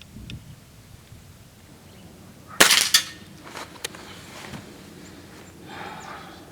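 A .177 coil-spring break-barrel air rifle (Gamo Hunter) firing once about two and a half seconds in: a sharp report that rings briefly. A couple of faint clicks follow.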